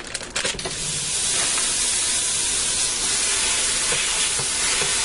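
Raw 80/20 ground beef sizzling steadily on the hot inner pot of a 6-quart electric pressure cooker set to brown. The sizzle starts abruptly about half a second in, as the meat hits the pot.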